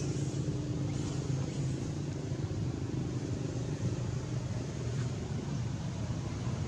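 Steady low rumble of motor vehicle engines idling and passing, with faint high chirps about a second in.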